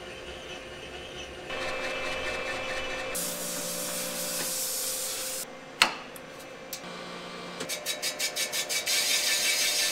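RMC cylinder boring machine running as its boring bar bores a cast-iron cylinder: a steady motor hum and hiss, a sharp clack about six seconds in, then a quick even chatter that turns into steady cutting noise near the end.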